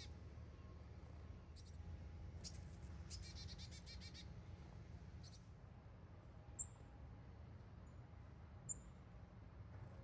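Faint small songbird calls: a few thin high chirps and a quick run of repeated notes about three seconds in, then two sharp high chirps later on. A steady low rumble runs underneath.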